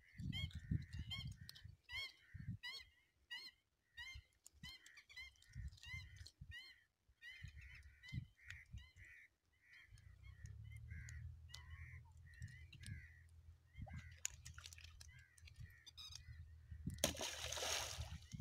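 Birds calling over and over, quick short calls about two a second at first, then looser and softer. Near the end, a loud splash and rush of water as the fishing net is lifted out of the pond.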